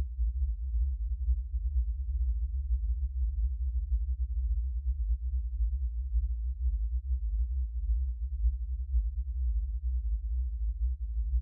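Low, fluttering rumble of wind buffeting the microphone, with no other sound over it. Right at the end, soft held musical tones begin to come in.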